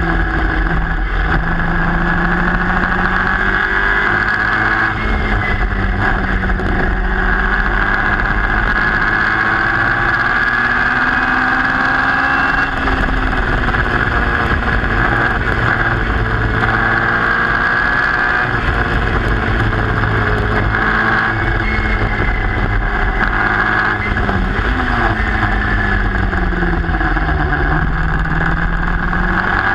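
Onboard engine of a historic Formula Junior racing car at racing speed. The engine note rises and falls continuously as the car accelerates and slows through the corners.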